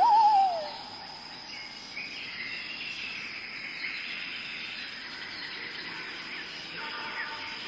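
Forest ambience: a bird's whistled call gliding down in pitch at the very start, then a steady high-pitched insect drone with faint bird chirps.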